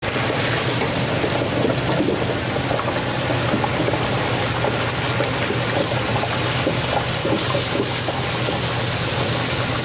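Hot oil sizzling and bubbling in a commercial pressure fryer with chicken frying, a steady sizzle with a low hum underneath.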